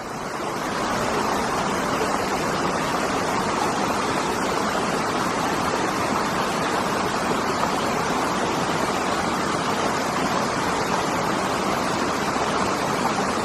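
Steady rushing of a waterfall and river cascades, an even wash of falling water that comes up in the first second and then holds level.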